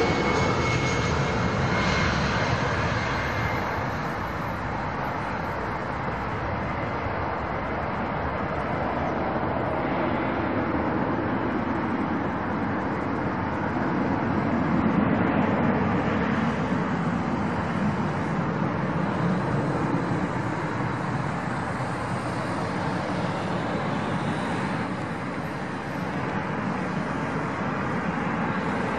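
Boeing 737-900ER's CFM56-7B turbofan engines at approach power as the jet comes in low on final approach with gear down: a steady jet rumble and hiss. A thin high fan whine fades over the first few seconds.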